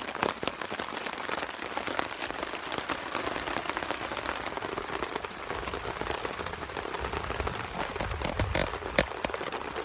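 Steady rain pattering on a tarp overhead, a dense hiss of many small drop ticks. Near the end a low rumble comes up and a few sharper, louder taps stand out.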